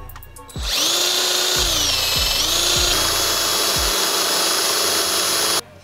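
Cordless drill running at speed, its bit cutting through the 3/16-inch aluminum corner armor plate into the Jeep's body. The whine starts about half a second in, dips in pitch briefly under load about two seconds in, and stops suddenly after about five seconds.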